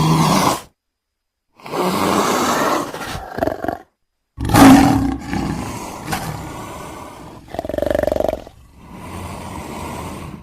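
Big-cat roars and snarls from leopard, tiger and lion recordings, played as a string of separate cut effects with dead silence between them. The loudest roar starts about four and a half seconds in and trails off slowly.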